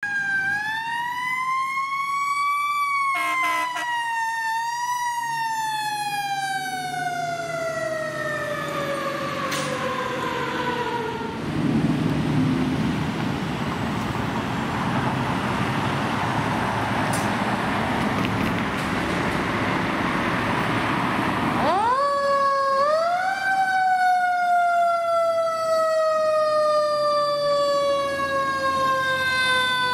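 Fire apparatus mechanical sirens. One winds up to its peak about three seconds in, then coasts slowly down in pitch for several seconds. After a loud stretch of steady, pitchless engine and road noise in the middle, a second siren winds up quickly about two-thirds of the way through and again coasts slowly down.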